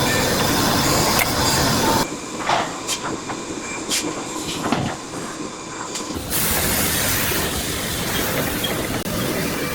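Industrial machinery running on an automated CNC production line: a steady hissing machine noise that changes abruptly twice, with a few short knocks in the quieter middle stretch.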